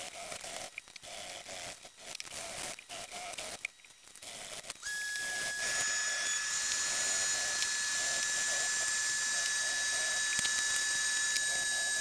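Sandpaper wrapped on a Teflon dowel being rubbed back and forth in the fuller of a steel knife blade, in uneven strokes. From about five seconds in, a steady high whistle-like tone with a hiss joins the strokes and holds.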